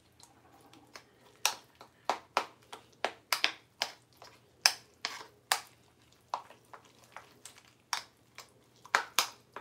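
A spoon clicking and tapping against the sides of a clear cup as a thick mixture is stirred and mashed, in sharp irregular taps about two or three a second.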